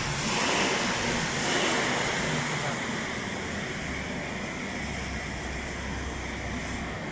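Steady rushing hiss of workshop background noise, with a low hum coming in about halfway through.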